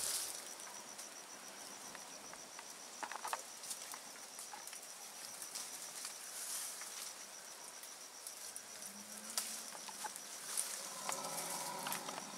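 An insect trilling steadily: a fast-pulsed, high, even note, with a few sharp snaps and clicks in the undergrowth.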